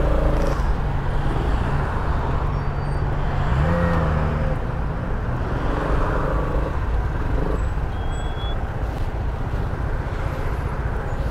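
Honda Forza 250 scooter's single-cylinder engine running at low speed while filtering between cars in slow, congested traffic, with the hum of surrounding vehicles. The engine pitch rises briefly about four seconds in.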